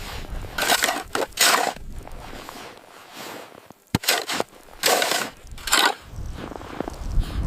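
Snow crunching in about five short, irregular bursts, with a sharp click near the middle, over a low rumble of wind on the microphone.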